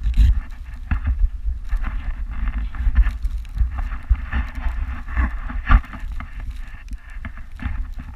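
Snowboard sliding over snow, a steady scraping hiss with a few sharp knocks, under a low rumble of wind buffeting the camera microphone.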